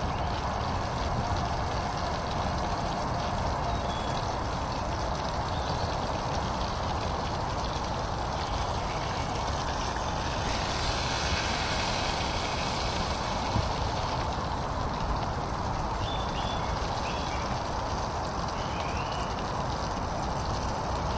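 Food frying in a pan on a camping stove: a steady sizzle over the burner's hiss. A few faint bird chirps come near the end.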